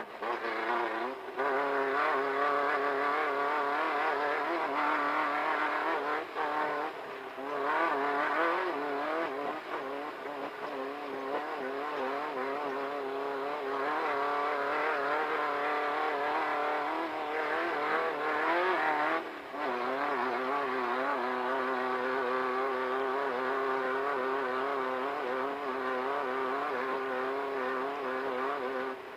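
Engine of a VW Beetle-based off-road race car running hard at racing speed, its pitch rising and falling with the throttle over rough ground. The engine briefly backs off about a second in, around seven seconds in, and again around nineteen seconds in.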